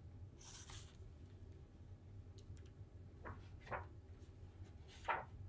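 Pages of a hardcover picture book being turned: faint paper rustling, with a few short light clicks about three, three and a half and five seconds in.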